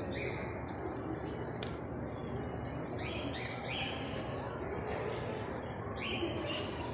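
Birds chirping in short, rising calls that come in groups of two or three, over a steady background hubbub.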